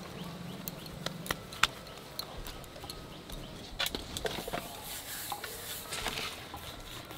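Sporadic light knocks and clicks of hands, dough and a wooden rolling pin on a stone slab as paratha dough is shaped and rolled out, with a soft scraping hiss in the second half.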